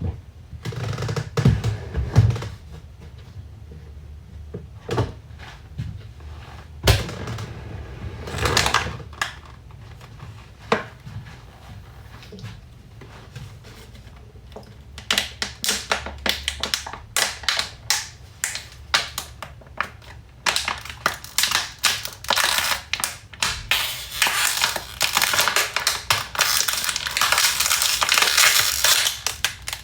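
Plastic water bottles being crinkled and squeezed: scattered knocks and clicks at first, then about halfway through a fast run of sharp crackles that grows denser toward the end.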